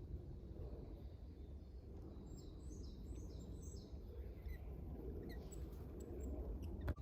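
A small bird calling: a quick run of about six short high chirps, each falling in pitch, a couple of seconds in, with a few fainter chirps after, over a low steady rumble.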